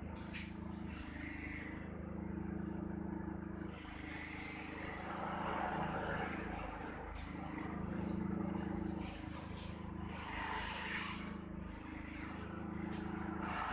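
A low steady hum that swells and fades every two to three seconds, with faint soft swishes of a straw broom brushing the floor.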